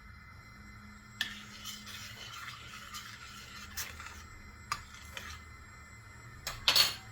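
Kitchen utensils working against dishes: scattered light clinks and knocks over faint scraping, with the loudest knocks just before the end.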